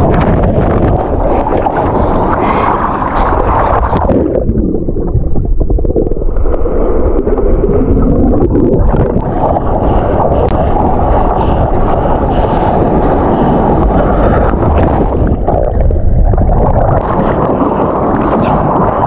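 Water rushing and splashing against an action camera as a surfer paddles prone on a surfboard, with wind buffeting the microphone. Twice, for a second or two, about four seconds in and again around fifteen seconds, the sound goes muffled as the camera dips under the water.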